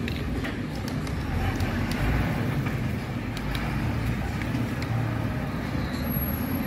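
MAN TGM 18.290 recycling truck's six-cylinder diesel engine running steadily as the truck drives off at low speed through a turn.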